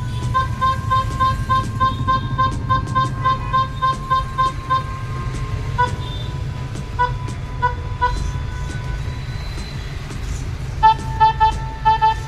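Electronic keyboard tones from a Casio SA-21/SA-41 mini keyboard: one note sounded over and over about three times a second, held for about a second, then a few spaced notes, and a slightly lower note repeated quickly near the end, over a steady low rumble.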